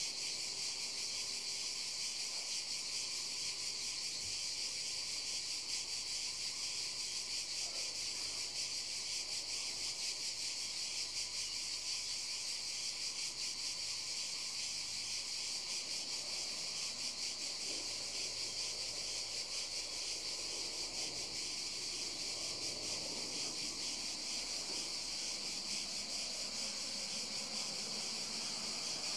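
Steady, high-pitched chorus of insects: a dense, fast trill that runs on without a break.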